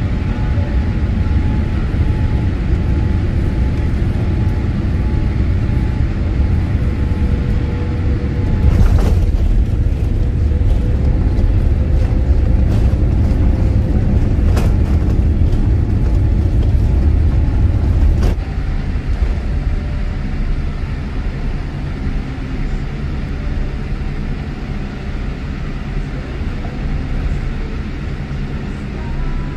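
Jet airliner landing, heard from the cabin: a steady engine and air rumble, then the touchdown about nine seconds in with a few sharp knocks and a louder rolling rumble as the spoilers go up on the runway. About eighteen seconds in the rumble drops abruptly to a quieter, steady rollout rumble.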